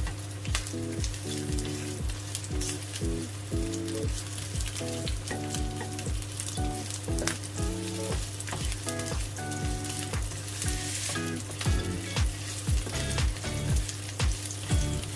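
Chopped garlic and sliced onion sizzling in hot oil in a pan, stirred with a spatula that knocks and scrapes against the pan. Background music with a steady beat plays under it.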